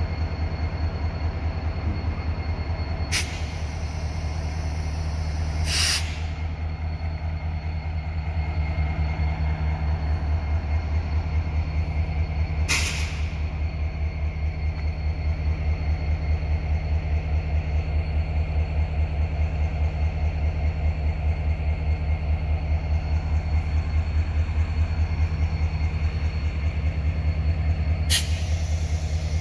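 GEC-Alsthom class 6FE electric locomotive standing with its machinery running: a steady low hum with a fast pulsing throb and a faint high whine. Four short hisses of released air break through.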